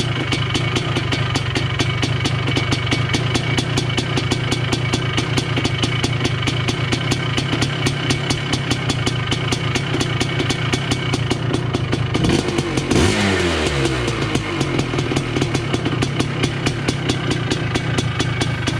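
1980 Honda CR250 Elsinore's single-cylinder two-stroke engine running on its first start after restoration, its carburettor not yet adjusted. It is blipped once about two-thirds of the way through and falls back.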